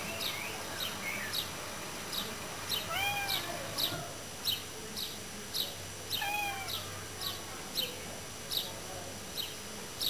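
A domestic cat meowing twice, about three seconds in and again just after six seconds: a cat stuck on a roof crying to be let down. A bird's short chirps repeat about twice a second throughout.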